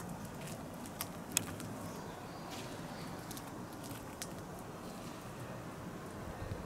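Steady low outdoor background noise with a few short, sharp clicks, the loudest about a second and a half in.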